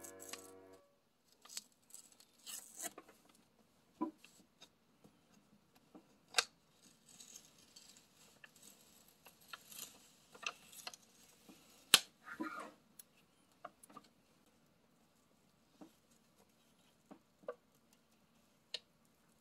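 Masking tape being peeled from the border of a bullet journal page, with the paper handled under the fingers. Scattered small clicks and rustles, a longer scratchy stretch around the middle, and one sharp click about twelve seconds in.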